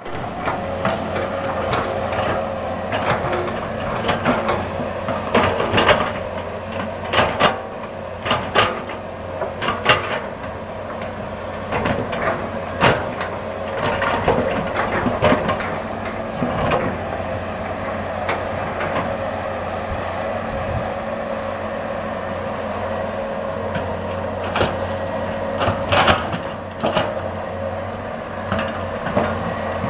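Excavator's diesel engine running steadily while its bucket knocks and scrapes against large rocks in a string of sharp clanks. The clanks come thickest in the first half and again near the end.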